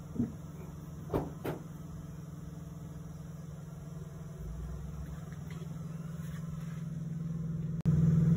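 Steady low mechanical hum of a running engine or machine, with a few short knocks in the first two seconds; the hum becomes suddenly louder near the end.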